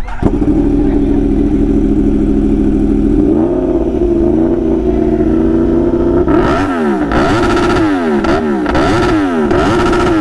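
Yamaha R1 sport bike's inline-four engine starting and idling, with one blip of the throttle about three seconds in. From about six seconds it is revved in short rapid blips, about two a second, the pitch rising and falling with each.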